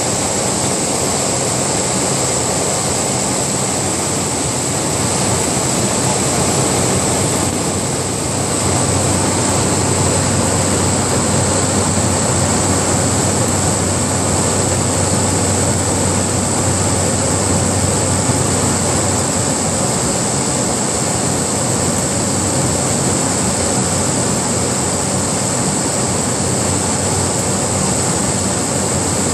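Steady engine and propeller drone with rushing air inside the cockpit of a small turboprop plane on final approach for landing. The level dips briefly about eight seconds in, then holds steady.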